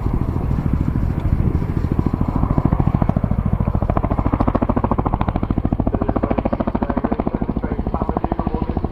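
RAF Chinook tandem-rotor helicopter flying a display manoeuvre, its twin rotors giving a loud, rapid, even blade slap.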